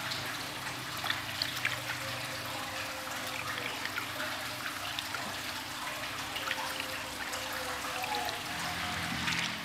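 Water sloshing and trickling in a plastic tub as hands rub and splash water over a soaked kitten's fur, with small splashes and drips throughout.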